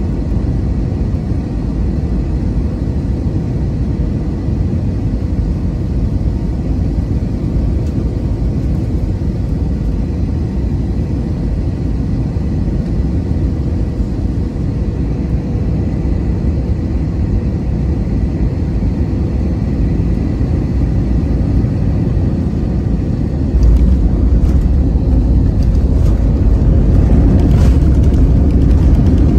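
Airliner cabin noise during landing: a steady low rumble of engines and airflow on final approach, which steps up suddenly about 23 seconds in as the wheels touch down and the plane rolls along the runway.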